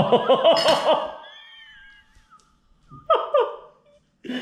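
A burst of laughter lasting about a second, trailing into a high wavering whimper. Two short laughs follow about three seconds in, and another starts near the end.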